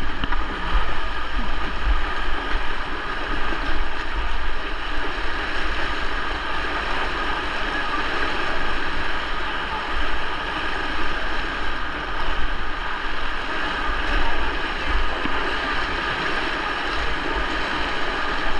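River in high water, rushing steadily past the boat, with a low rumble of wind on the microphone.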